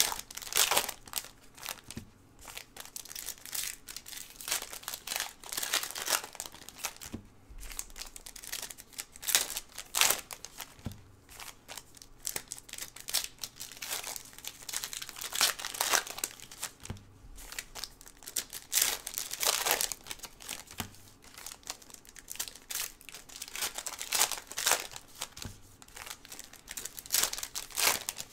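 Foil trading-card packs being torn open and crinkled by hand in bursts, with soft taps now and then.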